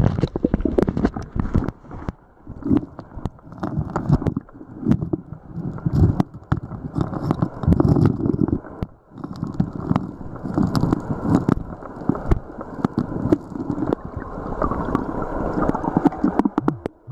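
Water sloshing and gravel scraping in a shallow creek bed, broken by many sharp clicks and knocks, as a detector target is dug out by hand.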